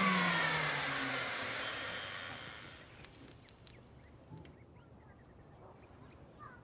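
Canister vacuum cleaner motor spinning down, its whine falling in pitch and fading away over about three seconds, then a few faint ticks.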